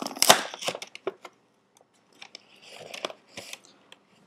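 Cardboard cereal box being torn open at the top: a burst of tearing and crackling in the first second or so, then quieter rustling of the cardboard with a few sharp clicks.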